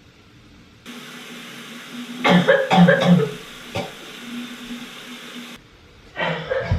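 A woman coughing in a short burst of several harsh coughs a little over two seconds in, over a steady hiss. The cough is put on, faked as if she were coughing up blood.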